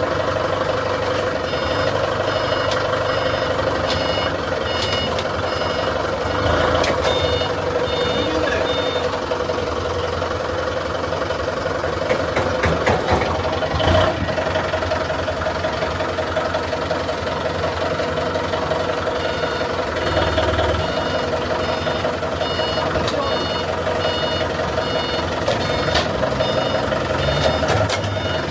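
A heavy diesel machine running steadily while its reversing alarm beeps about twice a second, stops for a stretch, then beeps again near the end. A few knocks of metal are heard in between.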